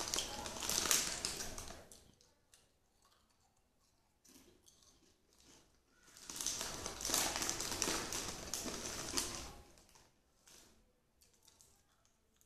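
Snack wrapper crinkling and rustling close to the microphone in two spells. The first dies away about two seconds in, and the second runs from about six to nine and a half seconds in. Faint scattered clicks come between them.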